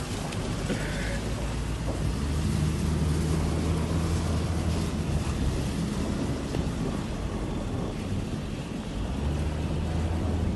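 Cars driving over snow: a steady low engine hum under rushing wind and tyre noise, the hum swelling twice.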